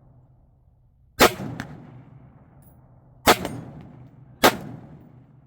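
Three rifle shots, the second about two seconds after the first and the third about a second later, each with a sharp crack and a decaying echo.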